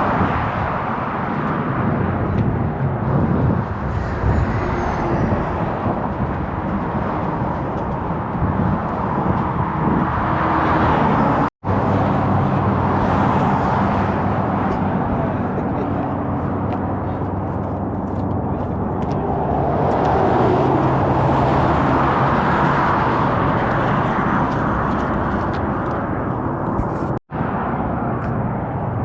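Steady road vehicle noise: a low engine hum under tyre and wind rush, swelling and easing slowly. The sound cuts out for an instant twice, near the middle and near the end.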